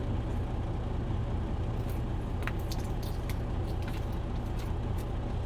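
Steady low engine idle hum, with a few light clicks and rustles of trading cards and plastic card holders being handled.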